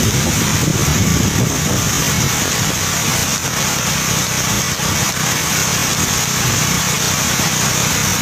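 A road vehicle's engine running steadily.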